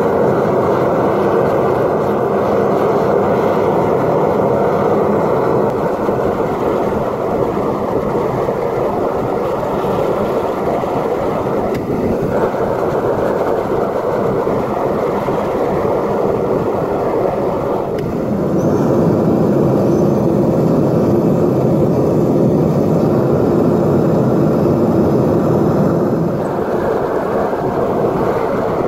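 Propane furnace burner running at full fire, a loud, steady rushing noise with no clear pitch, as the copper wire charge in the crucible heats toward melting. It dips briefly twice and runs a little louder for the last third.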